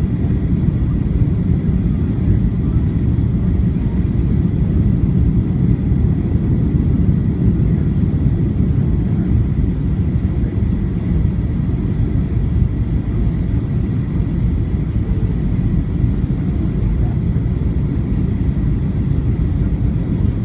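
Steady low rumble of a Boeing 737-900ER airliner heard from inside the passenger cabin: engine and airflow noise, with a faint steady high whine above it.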